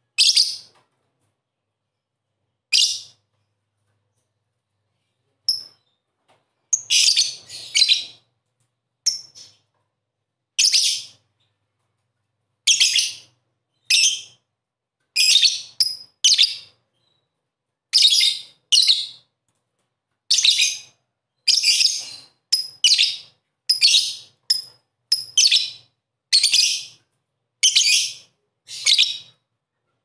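Lovebird giving short, shrill chirps again and again, about one a second, some in quick pairs, with silence in between.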